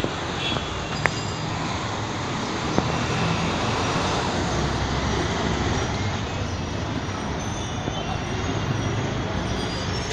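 Steady city street traffic noise with a low engine hum running under it, and a couple of sharp clicks in the first few seconds.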